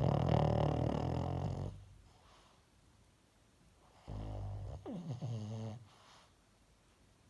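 A sleeping dog snoring: two long snores about four seconds apart, the second sliding down in pitch near its end.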